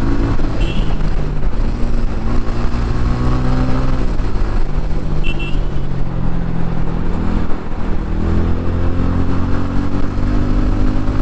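TVS Ronin single-cylinder motorcycle engine accelerating hard under a rider, its pitch rising, dropping briefly at a gear change about four seconds in, then rising again.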